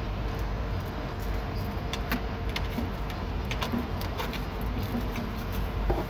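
Scattered light clicks and rattles of a car door latch assembly and its cables being handled and worked into the door cavity, over a steady low hum.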